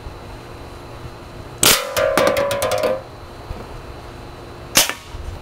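Homemade valveless compressed-air BB gun, running on about 80 PSI, firing a rapid full-auto burst of shots about a second and a half in, with a ringing tone under it, then one more sharp shot near the end. The BBs hit and knock over aluminium drink cans.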